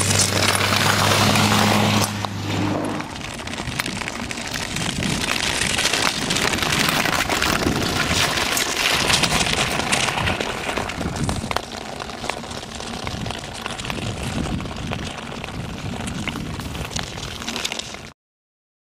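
Skate blades scraping and crackling over rough natural ice as a pack of marathon skaters passes close by. A small engine hums steadily for the first few seconds, then fades out.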